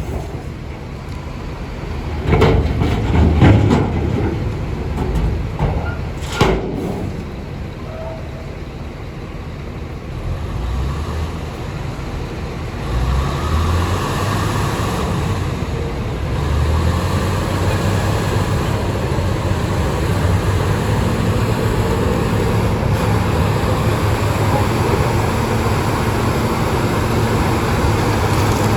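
Bulldozer's diesel engine running under load, with the clatter of its tracks. There are several sharp metallic knocks in the first seven seconds, and the engine gets steadier and somewhat louder from about halfway through.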